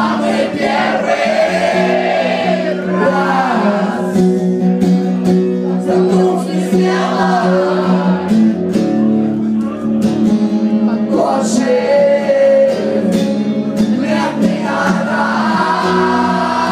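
Live concert music: a steady sustained instrumental backing with a voice singing over it in phrases every few seconds.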